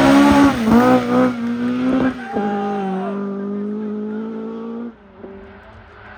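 Rally car engine revving hard, its note climbing and breaking off several times as it shifts up through the gears, then holding a steady pitch for a few seconds before falling away sharply about five seconds in.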